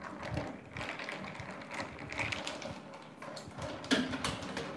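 Ice cubes clinking against the sides of a glass jar of smoothie as they are stirred with a wooden stick: a run of irregular clinks and taps, with one sharper knock near the end.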